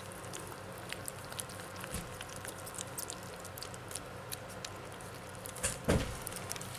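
Kittens eating wet cat food from a plate: many small, irregular wet clicks and smacks of lapping and chewing, over a faint steady hum. A louder brief rustle comes near the end.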